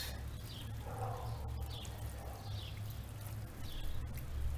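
Outdoor ambience: a small bird chirping repeatedly, short falling chirps about once a second, over a steady low rumble.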